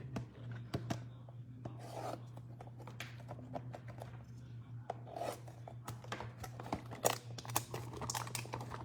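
A dull knife sawing and scraping through the plastic wrap and cardboard of a trading-card hanger box: scratchy tearing and rubbing with scattered clicks, busier in the last couple of seconds.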